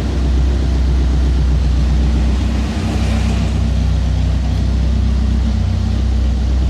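Car engine idling steadily. Its spark-plug tube seals are worn and let oil wet the spark plugs.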